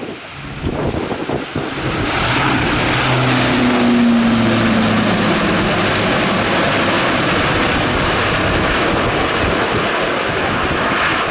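Airbus A400M's four TP400 turboprop engines and propellers running loud, building up about two seconds in and then holding as a dense roar, with a low drone that dips slightly in pitch as the aircraft passes.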